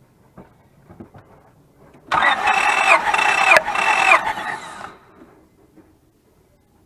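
Starter motor cranking a 2004 Honda Pilot's 3.5-litre V6 without it starting, for about two seconds from about two seconds in, in three even pulses. This is a compression test, and the cylinder on the gauge is reading about 195 to 200 psi.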